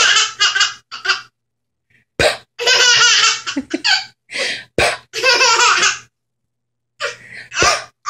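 A baby laughing in repeated high-pitched fits, broken by two short pauses.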